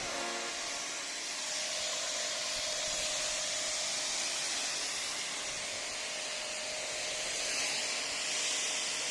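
Texum TX-75 high-pressure washer spraying a water jet, a steady hiss with a faint steady tone underneath.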